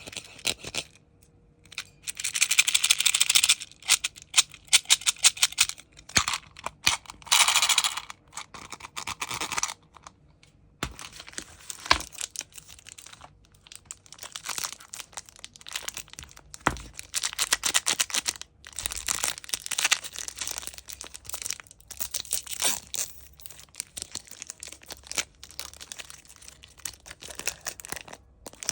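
Sweet packaging being handled and opened: wrappers crinkling and tearing in irregular bursts, with scattered sharp clicks.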